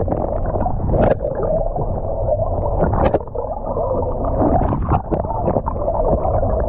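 Muffled, steady drone of a boat's engine, with gurgling water and a few short knocks.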